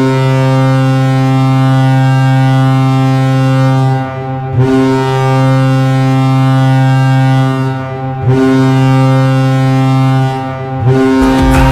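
Custom Vegas Golden Knights hockey goal horn blowing long blasts of about four seconds each, at one low, steady pitch with short breaks between them. Near the end a goal song starts up over the next blast.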